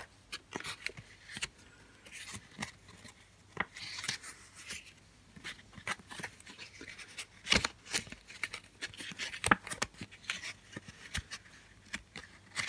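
Paper pages of a printed reference booklet being turned and handled: intermittent rustling with a few sharp clicks.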